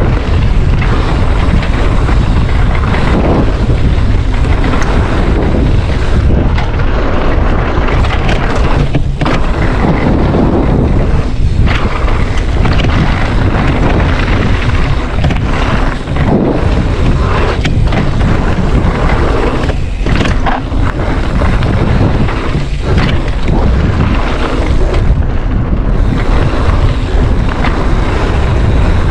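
Wind buffeting the microphone of a camera on a mountain bike rider at speed, a loud steady rumble. It is broken by frequent knocks and rattles from the bike going over the trail.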